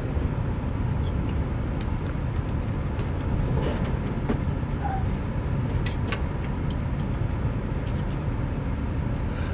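Steady low mechanical rumble with a few light clicks and taps scattered through it.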